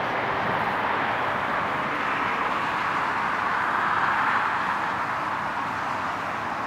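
Jet engine noise from a Boeing 777-300ER's GE90 engines as the airliner touches down and rolls out, mixed with cars passing on a road close by. The sound swells about four seconds in and fades toward the end.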